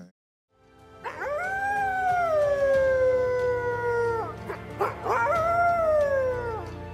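Wolf howling twice: a long howl that rises and then slowly falls, then a shorter one, over quiet background music.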